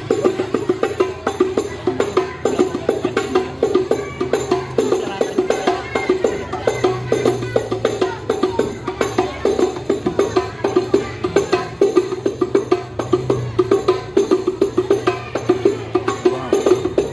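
Hadrah music: rebana frame drums beaten in a fast, steady, interlocking pattern of many strokes a second, played loud over a line-array PA system during a sound check.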